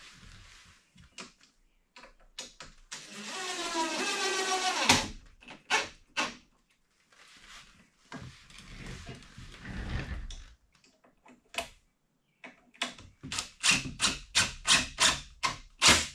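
A small power tool's motor runs for about two seconds, its pitch rising, then stops abruptly. Scattered knocks follow, then a quick run of sharp clicks, about three or four a second, near the end.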